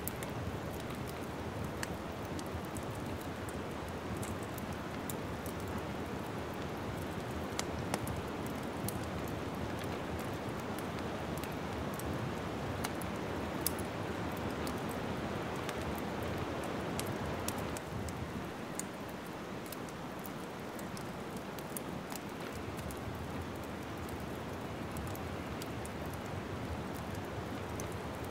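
Wood fire crackling in a fireplace: a steady hiss with frequent small, sharp pops and snaps, a few louder than the rest.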